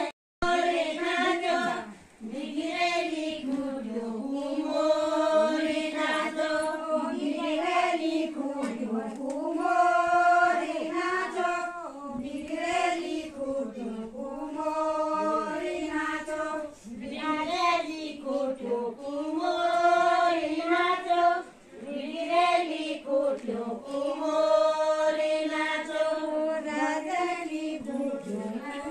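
A group of women singing an Uttarakhand thadya folk song together, unaccompanied, in repeated sung phrases that rise and fall in pitch.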